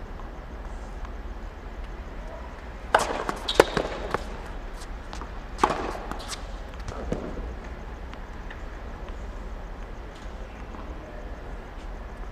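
Tennis practice rally on a hard court: a racket striking the ball and the ball bouncing, as a few sharp pops about three seconds in and again near six and seven seconds, over a steady low hum.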